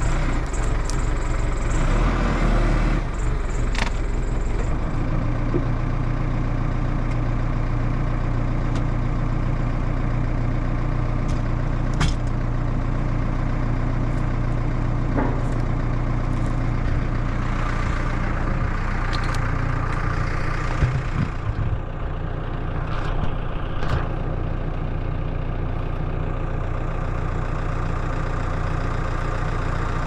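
Telehandler's diesel engine running steadily, its low hum changing about five seconds in as it settles to idle. A few sharp knocks and clunks are heard between about twelve and twenty-four seconds in.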